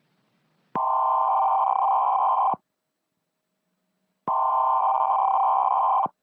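An electronic warning tone sounding in two steady blasts of about two seconds each, with a short silence between them. The pattern repeats evenly, like a busy or alert signal.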